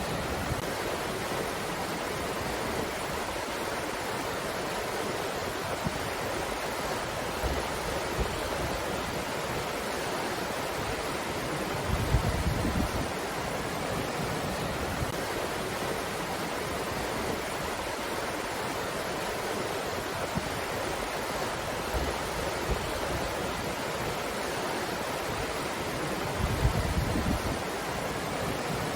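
Steady wind noise, a continuous even hiss, with two brief louder low rumbling gusts, one about twelve seconds in and one near the end.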